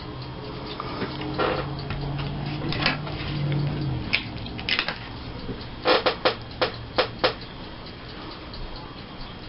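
Scrapbooking materials being handled on a table: light scattered taps and rustles, with a quick run of about five sharp clicks between six and seven seconds in.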